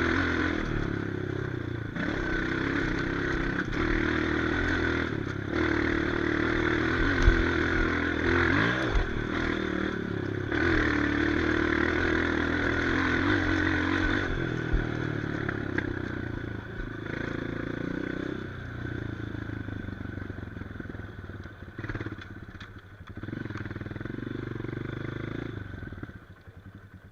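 Trail motorcycle engine running and revving unevenly, with a sharp knock about seven seconds in; the engine sound fades away near the end.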